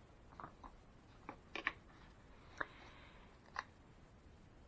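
Faint handling noises: a few scattered soft taps and a brief rustle as gloved hands lift a silicone resin mold and set it down on a paper-covered table.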